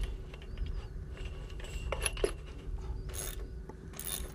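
Ratchet wrench clicking in a few short runs as bolts are tightened on the metal clamp that fixes a wind turbine head to its tower pipe.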